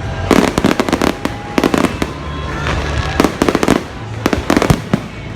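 Fireworks display: clusters of loud bangs from bursting shells, coming every second or so, with music playing underneath.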